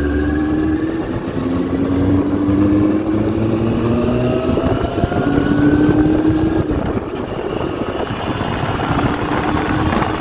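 Benelli TNT 600i's 600 cc inline-four engine under way on the road, its pitch climbing steadily, breaking off about five seconds in and climbing again, then settling lower near the end, with a constant rush of wind noise.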